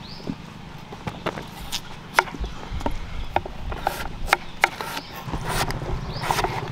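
Large kitchen knives chopping peeled potatoes on a round wooden cutting board: irregular knocks of the blades striking the wood, a few a second.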